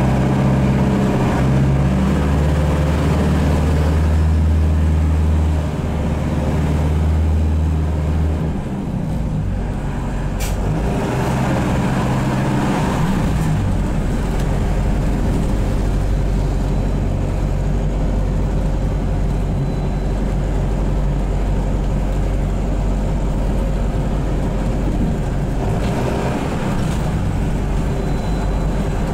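The diesel auxiliary engine of a Van Hool AG300T trolleybus running while the bus drives, heard from inside the passenger cabin. The steady engine note changes about eight seconds in to a lower, rougher drone. There is one sharp click about ten seconds in.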